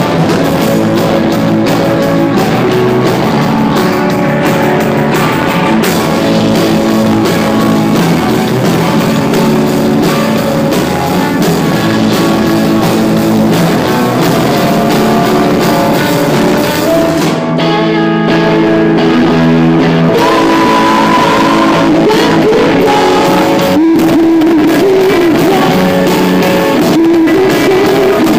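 Rock band playing live: electric guitar chords over a drum kit, with a voice singing in the latter part.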